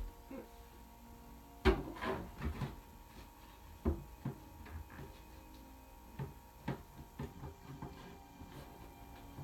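Scattered knocks and clatters of objects being handled and set down on wooden furniture while tidying, the loudest about two seconds in, others spread through the rest.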